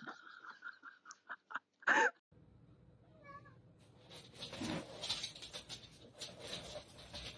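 A cat meowing: one short, loud meow about two seconds in and a fainter one about a second later, followed by a few seconds of rustling noise.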